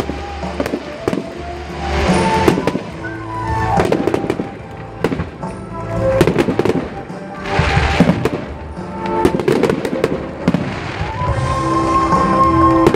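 Fireworks display going off in repeated bangs and crackles, over music playing throughout.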